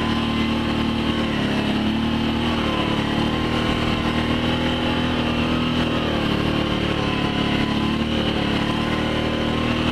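Small vehicle engine running steadily under way, its pitch rising and falling slightly with the throttle.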